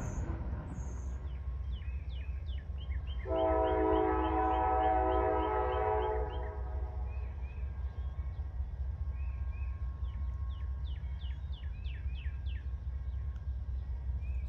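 A locomotive horn sounds one steady blast of about three seconds, a few seconds in, over the low rumble of a freight train rolling away.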